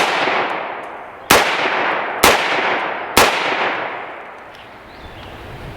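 Four AR-15 rifle shots, spaced about a second apart, each followed by a long echoing tail that fades away.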